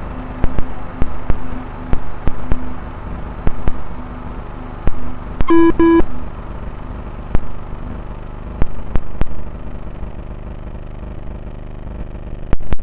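Small electric RC car's motor and drivetrain whirring in repeated bursts as the throttle is worked over rough ground, with many clicks and rattles. About halfway through, two short electronic beeps sound as the laser-tag system registers a target hit.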